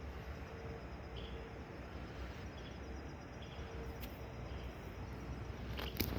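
Outdoor ambience: a steady low rumble with faint, short bird chirps every second or so, and a few sharp clicks near the end.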